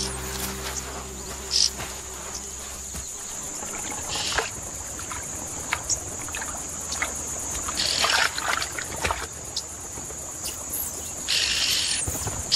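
Steady high-pitched drone of an insect chorus. A low sustained music tone fades out about three seconds in, and a few short louder bursts of hiss come near the middle and end.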